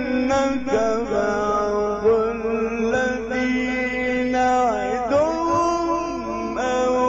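A male Quran reciter chanting in the melodic mujawwad style, holding long ornamented notes, with a slide down in pitch a little past the middle before the note settles and steps up again near the end.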